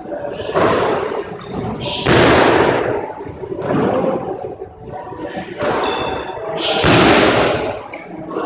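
Kicks and strikes landing on Thai pads: a run of hard thuds, the two loudest about two seconds in and near the end, each ringing on in the bare-walled court's echo.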